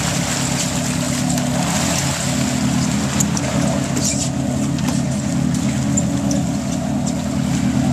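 A fishing boat's engine running steadily, a low even drone with a hiss of wind and water over it.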